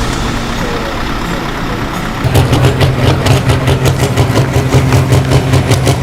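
Heavy truck engine running. About two seconds in it gets suddenly louder, a deep steady rumble with a fast pulsing beat.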